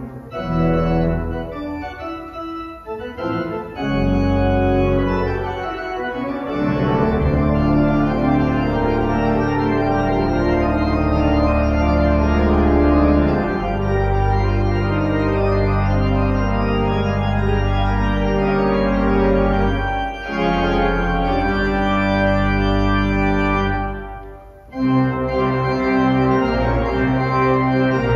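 Church organ playing a hymn prelude: sustained chords over deep pedal bass notes, lighter for the first few seconds, then full. It breaks off briefly near the end and carries on.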